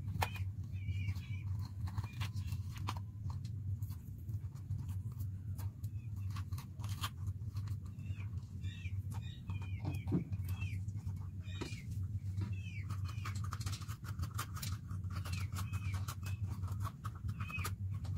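A small knife cutting the stems and seed cores out of green bell peppers over a steel plate: many crisp clicks and crunches, with short chirping squeaks between them. A steady low hum lies underneath.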